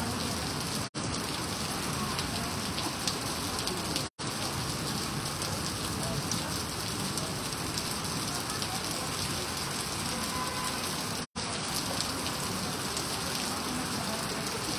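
Heavy rain pouring onto a flooded paved street, a steady hiss of drops splashing into standing water. The sound cuts out for an instant three times.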